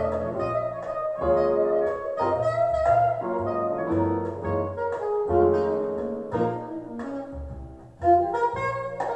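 Instrumental jazz break: saxophone over a double bass line, with a brief drop in level and a new phrase coming in about eight seconds in.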